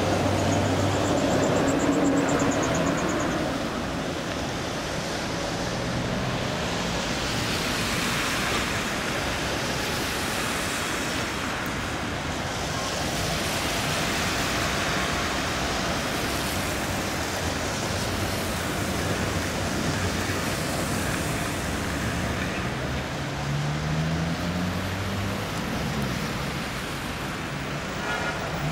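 Trams rolling over the rails through a curve: a steady rumble and hiss of wheels on track with a low motor hum. A thin high squeal lasts a couple of seconds near the start, and a low whine rises in the last few seconds as the tram gathers speed.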